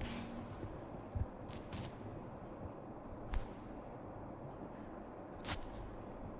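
Small bird chirping in quick runs of three or four high notes, each note dropping in pitch, about every two seconds, with a few faint clicks in between.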